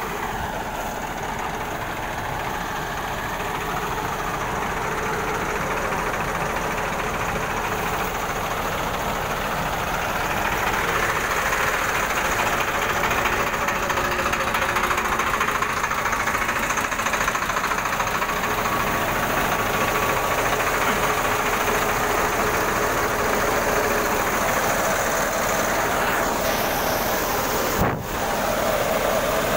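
Tractor-driven paddy thresher running steadily: the tractor's diesel engine working and the threshing machine drumming along together. A short knock near the end.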